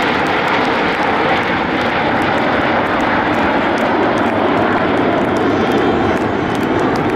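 Jet engines of a close formation of Aermacchi MB-339 jet trainers flying past, a loud, steady rushing noise.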